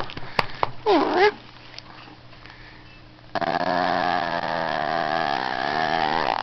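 Shih tzu growling at being teased: a short sound about a second in, then a long wavering growl held for about three seconds.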